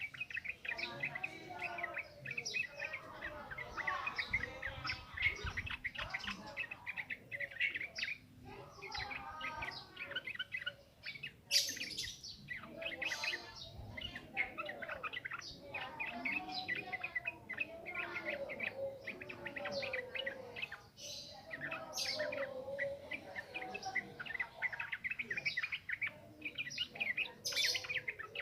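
Sooty-headed bulbul (trucukan) singing a fast, unbroken stream of chattering, chirping notes: the rapid 'ngropel' song of a wild bird.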